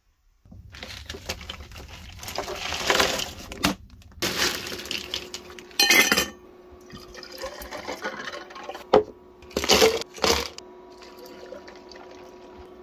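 Liquid poured into drink cups, first into a steel tumbler and then milk into a plastic shaker cup, with several sharp knocks and clinks of containers being handled. A steady hum runs underneath in the later part.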